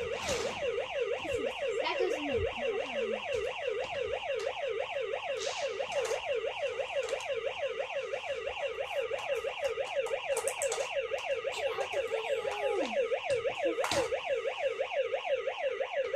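Electronic siren of a Hess toy fire truck: a fast yelp that sweeps up and down about five times a second without a break, with a few light clicks over it.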